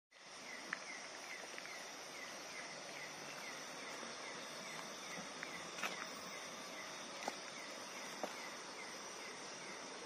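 Night-time chorus of calling insects: a steady high hiss with a short falling chirp repeating about two and a half times a second. A few sharp clicks stand out, the loudest about six seconds in.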